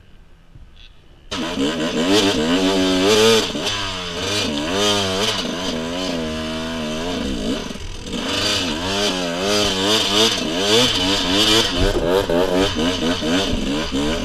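Dirt bike engine under way, its revs rising and falling over and over as the rider accelerates and backs off. The engine sound begins abruptly about a second in.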